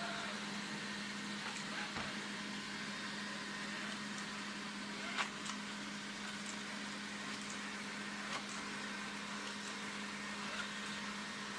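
Alfawise V8S robot vacuum cleaner running: a steady motor hum under an even whirring hiss, with a few light clicks.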